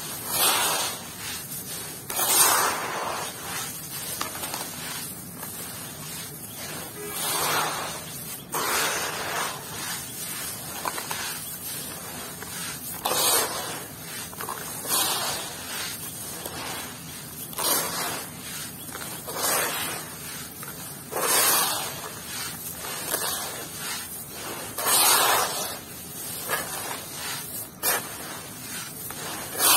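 Hands scooping and letting fall handfuls of damp crumbled clay. A gritty rustling pour swells every two seconds or so, with softer crumbling between.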